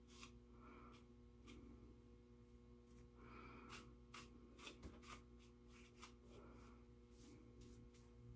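Near silence, with faint scattered scratches and ticks of a comb working through a synthetic wig's fibers.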